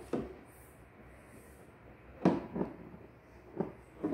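A few light knocks and bumps on a hollow double-wall plastic toddler step stool as a toddler climbs on it, the loudest about two seconds in.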